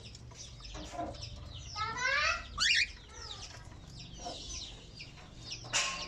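Small parrots in an aviary, budgerigars, cockatiels and lovebirds, chirping and chattering in many short, high calls. A louder cluster of squawks comes about two to three seconds in.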